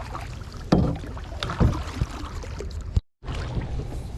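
A few sharp knocks and thumps, about three in the first two seconds, over a steady low rumble, with a brief cut to silence about three seconds in.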